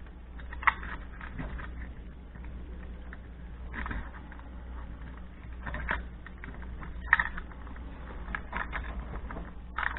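Small scattered clicks, scrapes and rustles of a plastic thermostat housing and its thin wires being handled and worked loose with a screwdriver. The sharpest clicks come just under a second in and again about seven seconds in.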